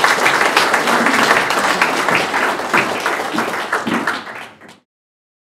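Audience applauding, a dense patter of many hands clapping that dies away near the end and then cuts off.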